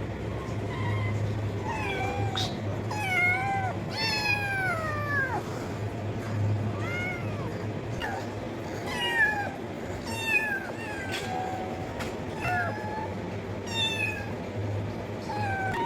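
Cats meowing over and over: about a dozen short, high-pitched meows, most of them falling in pitch, over a steady low hum.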